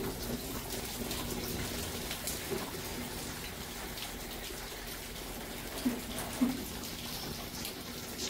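Steady monsoon rain falling and splashing, with a constant rush of running water and scattered drip taps. There are two louder plops about six seconds in.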